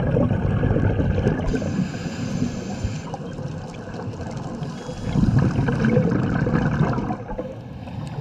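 Scuba regulator exhaust bubbles heard underwater: the camera diver's exhaled breath bubbling and gurgling out, in two long bursts, one at the start and another about five seconds in.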